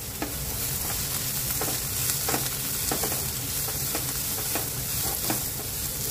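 Diced vegetables sizzling in hot oil in a non-stick pan as they are stir-fried, with a short scrape or knock of the silicone spatula against the pan about every second.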